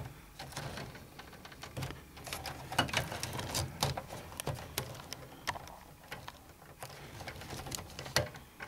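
Irregular light clicks and rustles of handling as the cables inside an open PC case are moved about, over a faint low steady hum.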